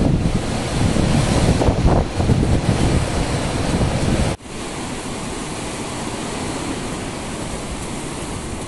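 Wind buffeting the microphone: a loud, gusty rumble that cuts off abruptly about four seconds in, giving way to a steadier, quieter rushing hiss.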